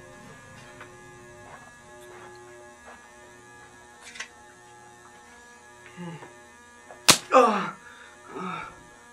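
A steady low electrical hum, then about seven seconds in a single sharp hit, followed at once by a short falling cry and a shorter groan near the end.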